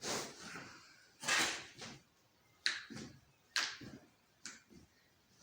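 A chiropractic adjustment: a run of about six sudden knocks and thuds in quick succession. One of them, about a second in, is longer and rustling.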